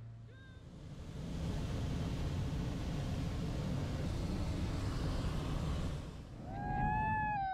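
Hot air balloon's propane burner firing: a steady roar lasting about five seconds that dies away about six seconds in. Near the end come a few rising-and-falling pitched calls.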